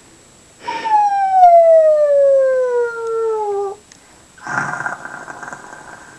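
A small child's pretend snoring: a short rasping breath, then a long voiced tone sliding steadily down in pitch for about three seconds. Another rasping breath follows about four and a half seconds in.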